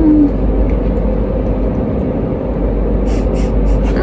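A woman chewing a bite of a tortilla wrap, with a short rising hummed 'mm' at the start and a quick run of mouth clicks about three seconds in, over a loud steady low rumble.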